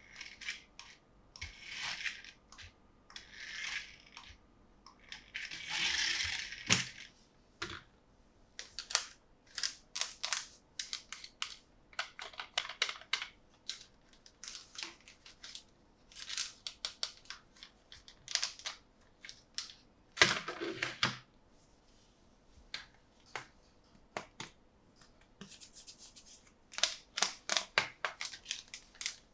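Toy packaging being handled and opened: several short bursts of rustling and tearing, mostly in the first seven seconds and again near the end, among many small clicks and taps of plastic being handled.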